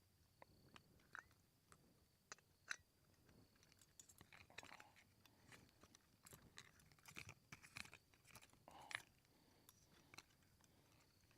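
Near silence with faint scattered clicks and crinkling rustles, camp-stove cooking gear and a food packet being handled.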